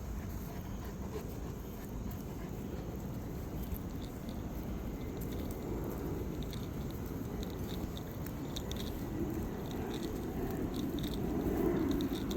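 Cane Corso pup chewing, with light clicks from about four seconds in over a steady low background noise.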